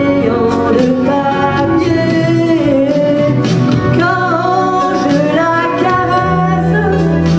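A woman singing into a microphone over an amplified music backing track.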